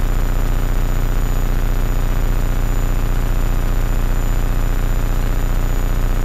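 Steady engine and rotor noise inside the cabin of a Hummingbird kit helicopter in cruise flight: a constant low drone with a fast, even pulsing.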